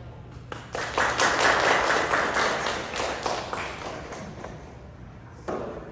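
Applause from a small audience, breaking out about half a second in, strongest in the first two seconds and dying away over the next few. A brief thump near the end.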